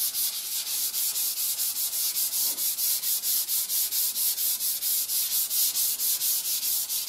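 Folded sandpaper rubbed by hand over the primed quarter panel of a car: dry finish sanding of the final primer coat. It makes a steady, rhythmic scratching of quick back-and-forth strokes, about five a second.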